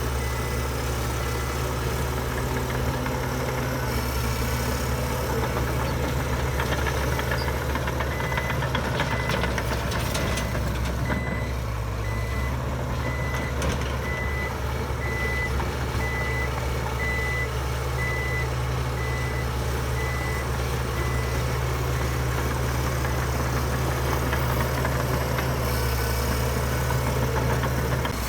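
Heavy diesel construction machinery running steadily, with a reversing alarm beeping about once a second that stops about three-quarters of the way through.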